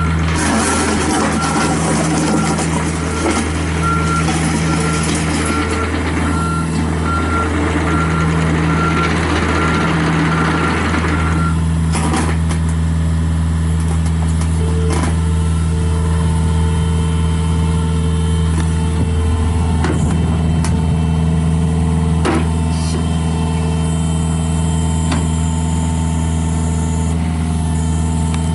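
John Deere 50G mini excavator's diesel engine running steadily, with its travel alarm beeping at an even pace for the first ten seconds or so and then stopping. A few sharp knocks come later while the engine runs on.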